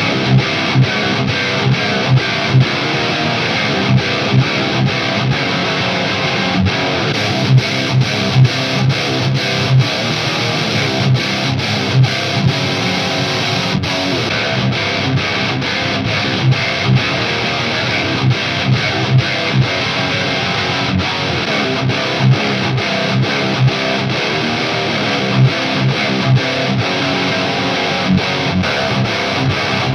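High-gain distorted electric guitar playing a heavy rhythm riff with repeated chugging low notes, with no backing. It runs through a Marshall JVM410H head, then a Mesa Boogie Dual Rectifier, then an Orange Rockerverb 50 MKIII, all into the same Mesa 2x12 V30 cabinet impulse response.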